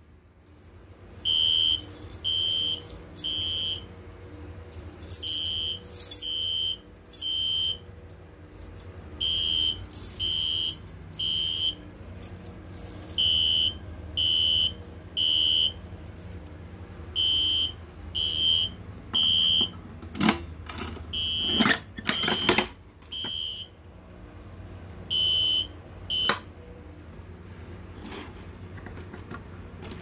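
System Sensor SpectrAlert Classic fire alarm horn sounding the temporal-3 evacuation pattern: three short, high-pitched blasts, a pause, repeated, set off by the pulled FCI MS-2 pull station. A few loud clicks sound in the second half, and the horn stops about four seconds before the end.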